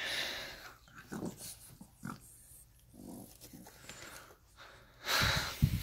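French Bulldog puppy making a few short grunting, snorting sounds, the loudest about five seconds in.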